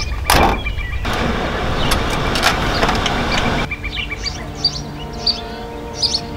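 A short whoosh, then a Volkswagen LT35 van's engine starting and running for about three seconds, cutting off abruptly. Bird chirps over steady tones follow near the end.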